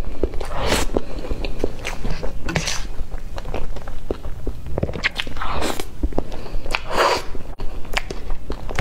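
Close-up eating sounds of soft cream cake: many short wet lip and tongue clicks, with a few longer, wetter mouthfuls spread through.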